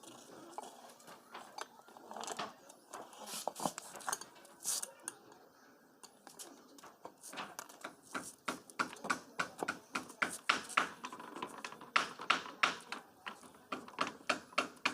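Metal tools clinking and tapping on the metal parts of a tubewell hand pump under repair: scattered knocks at first, then a quick run of sharp metallic taps, about three or four a second, from about halfway through.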